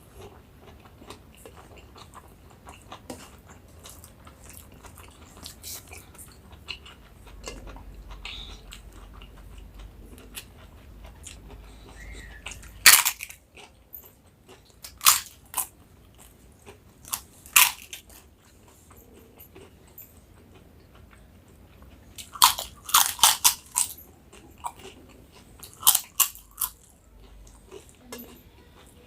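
Close-miked eating: soft chewing, then from about halfway a series of loud, sharp crunches, several in quick succession near the end, as crisp papad is bitten and chewed.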